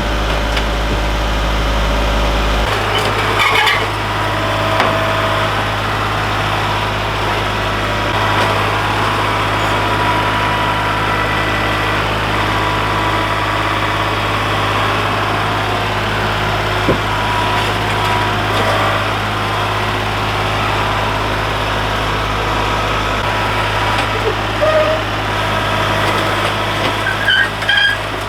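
A vehicle engine running steadily, with its low hum shifting about three seconds in and again near the end, and a few light knocks on top.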